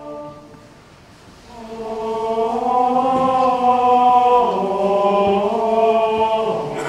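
Mixed choir of adults and children singing a Christmas carol in long held chords. The voices swell in about a second and a half in and move to a new chord about halfway through.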